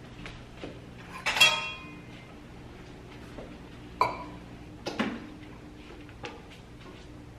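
Hard objects clinking and knocking, like dishes being handled. The loudest clink comes about a second and a half in with a brief ring, and two more sharp knocks follow around four and five seconds in.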